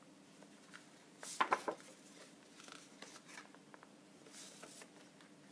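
Sheets of patterned paper and cardstock sliding and rustling as they are handled and laid on a desk: a couple of short swishes, the louder one about a second and a half in, another near the end.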